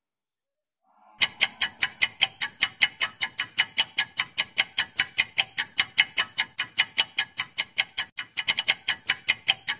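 Clock-ticking sound effect for an on-screen countdown timer: quick, even ticks at about five a second, starting after about a second of silence.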